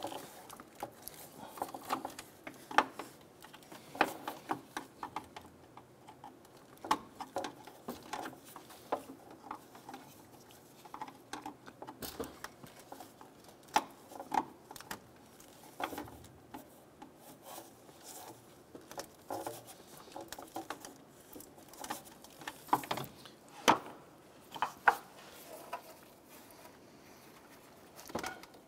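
Irregular clicks, taps and rattles of plastic wiring-harness clips and connectors being pried off a radiator cooling fan assembly with a trim tool, with a few sharper knocks among them.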